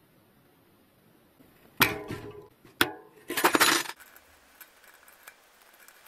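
Small metal parts clinking: a sharp clink with a short ring about two seconds in, a single click a second later, then a brief rattling clatter, followed by a few faint ticks.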